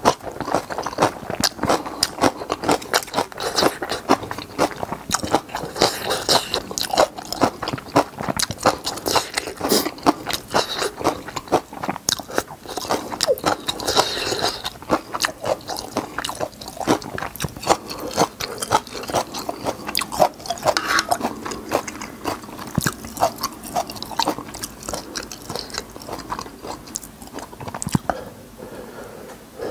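Close-miked chewing of spicy instant ramyun noodles and napa cabbage kimchi: steady wet chewing with many small crisp crunches.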